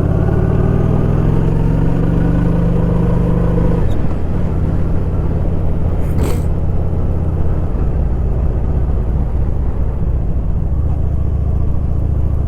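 Vehicle engine under way, its pitch rising for about four seconds before dropping suddenly at an upshift, then running steadily. A short sharp click about six seconds in.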